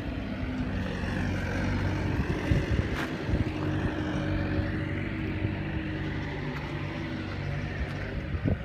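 Bobcat T190 tracked skid steer's diesel engine running steadily.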